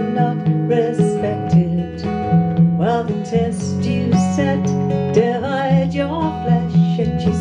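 A woman singing a folk song, accompanied by a strummed acoustic guitar and an electric bass guitar played live.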